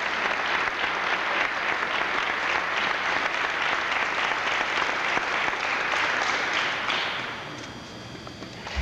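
Audience applauding in a hall, fading away about seven seconds in. A low thump comes at the very end.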